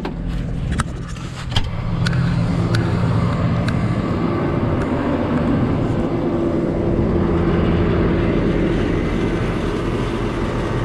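New Holland tractor's diesel engine running under a hay-trailer load, rising in level about two seconds in and then running steadily. A few light clicks in the first two seconds.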